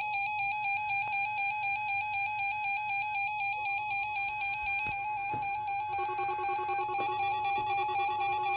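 NOAA Weather Radio warning alarm tone sounding for its weekly test: a loud, steady electronic tone with a fast regular warble. About six seconds in, a second, lower tone joins it.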